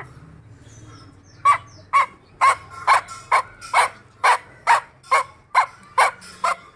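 A run of short, sharp animal calls, about two a second, starting about a second and a half in and repeating evenly.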